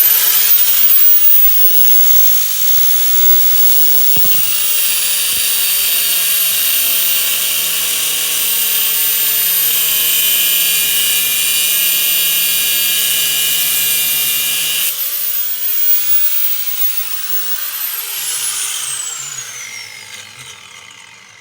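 Angle grinder with a cutoff wheel spinning up and grinding a slot into the head of a steel one-way security bolt. A high steady whine runs with a harsh grinding hiss. The grinding eases about three-quarters of the way through, then the motor is switched off and its pitch falls as the wheel spins down.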